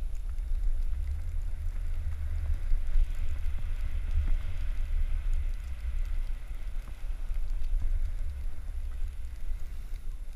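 Wind buffeting a moving camera's microphone during a downhill ski run: a steady low rumble that flutters in level. Over it, the hiss of sliding over snow grows louder in the middle and then fades.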